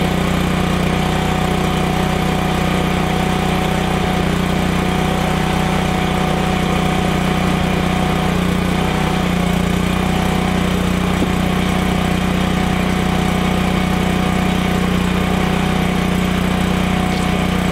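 Onan 2.8 kW Spec K RV generator engine running steadily at an even speed.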